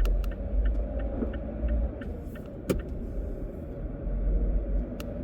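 Car driving slowly, heard from inside the cabin: a steady low engine and road rumble. Light regular ticking over the first few seconds fits the turn signal during a left turn, and there are two sharp knocks, one about midway and one near the end.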